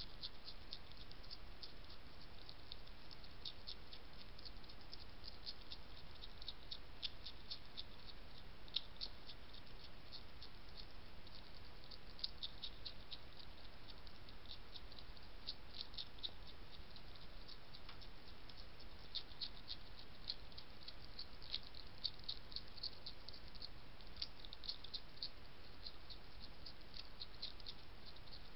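A hedgehog crunching dry kitten biscuits from a dish: quick, irregular clicks and crackles of chewing that come in clusters, over a steady low hiss.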